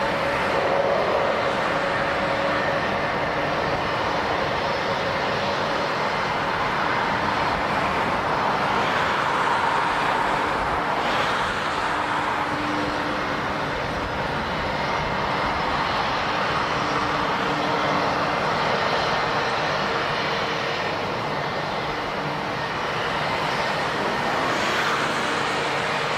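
Airliner jet engines running, a steady rushing noise with a faint whine.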